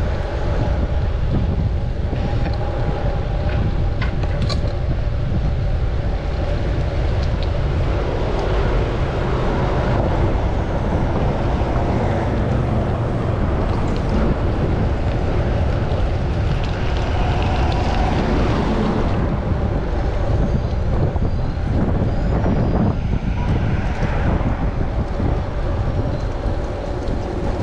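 Wind rushing over the microphone during a city bicycle ride, a steady low rumble with traffic running underneath and a few faint ticks.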